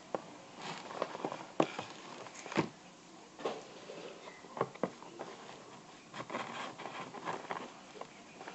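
Toy packaging being handled and opened: irregular crinkles, taps and sharp clicks.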